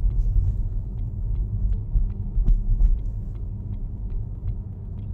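Tyre and road rumble inside a Tesla electric car's cabin as it drives along a street, with a faint regular ticking, about three ticks a second.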